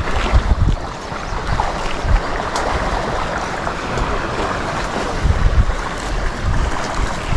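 Wind buffeting a chest-mounted camera's microphone: a steady rushing noise with irregular low gusts.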